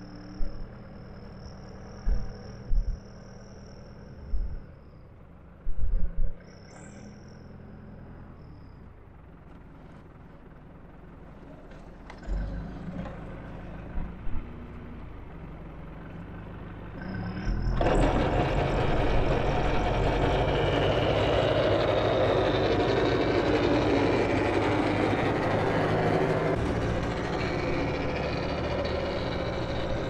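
New Holland L85 tractor's diesel engine idling, with a few loud low thumps in the first few seconds. About eighteen seconds in, a loud steady rushing sets in suddenly as the engine comes up to working speed and the PTO-driven Westbjørn snowblower runs.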